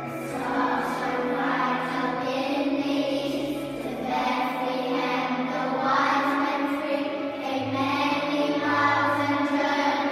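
A choir of primary-school children singing a Christmas carol together over an instrumental accompaniment with sustained low notes.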